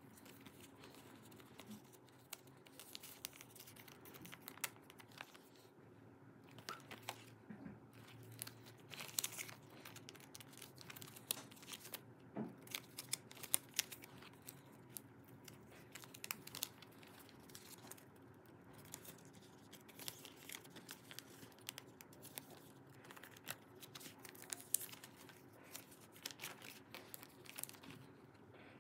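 Clear plastic binder sleeves crinkling and rustling in many short, irregular crackles as photocards are slid in and out of the pockets and the pages are handled, over a faint steady hum.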